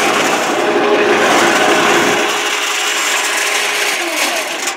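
Electric cement mixer running on test, its motor turning the drum through the pinion and ring gear on a freshly rebuilt, greased drum shaft and bearing. The running noise is loud and steady, and its pitch falls near the end.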